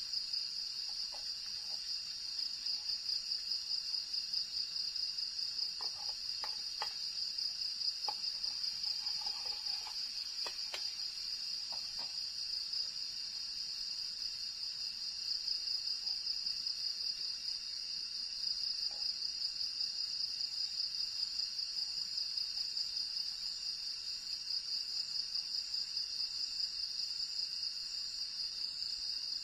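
Night insect chorus: a steady, high-pitched, finely pulsing trill of crickets. A few faint clicks are heard in the first half.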